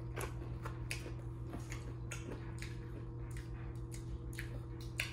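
A person chewing food close to the microphone: scattered soft clicks and wet mouth sounds, over a steady low hum.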